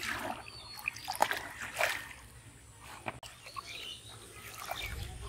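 Shallow muddy floodwater splashing and trickling as a plastic basin is emptied and hands scoop and grope through the water, in a few short splashes.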